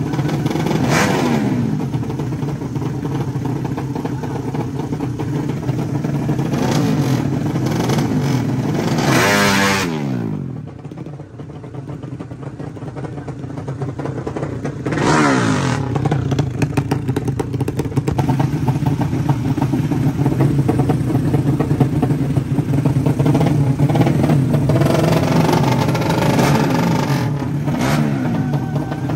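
Drag-racing motorcycle engines running and revving hard. About a third of the way in the revs fall away and it goes quieter for a couple of seconds, then the revs climb again and stay high for the rest.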